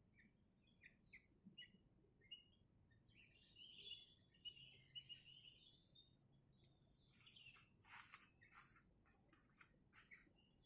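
Sooty-headed bulbul (kutilang) chirping faintly in short separate notes. About three seconds in it breaks into a short twittering run, and a quick series of sharp short notes follows in the last few seconds.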